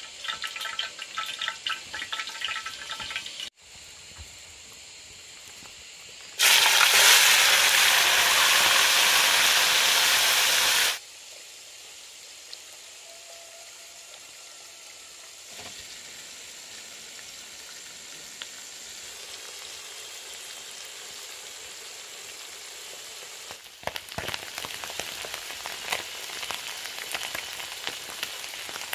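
Oil sizzling and crackling in a wok, with small stream fish deep-frying in it. About six seconds in, a much louder, even sizzle starts, then cuts off suddenly some four seconds later; a softer steady sizzle follows, and the crackling picks up again near the end.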